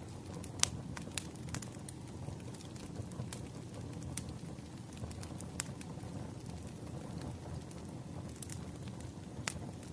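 Wood fire burning with a low steady rumble and irregular sharp crackles and pops from the burning logs, the loudest pop coming just over half a second in.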